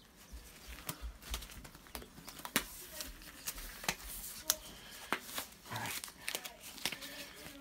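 Tight black disposable gloves being pulled on and worked over the hands: rubbery rustling and stretching, with many sharp, irregular snaps of the glove material.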